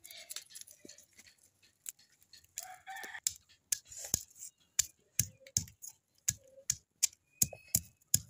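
Stone pestle pounding garlic cloves on a grooved stone grinding slab (shil-nora): a run of sharp knocks, scattered at first, then a steady beat of about two or three a second from around the middle on.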